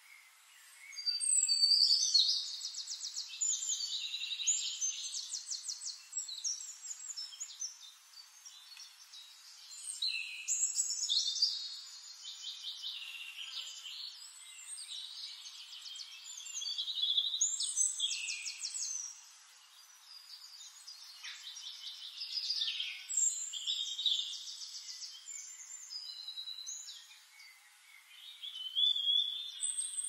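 Songbirds singing: several high, fast-trilling song phrases, each a few seconds long, come every five or six seconds.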